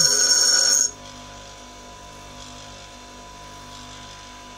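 A parting-off tool ground briefly on a Rexon bench grinder wheel: a loud, high-pitched grinding screech that stops abruptly about a second in as the tool is lifted off. The grinder keeps running with a steady motor hum.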